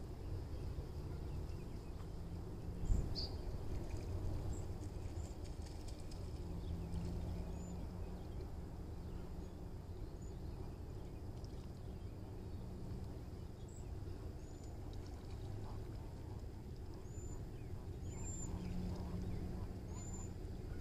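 Riverside outdoor ambience: a steady low rumble, with short high bird chirps every second or two and faint waterfowl calls, likely the geese resting on rocks in the river. A single brief thump about three seconds in is the loudest sound.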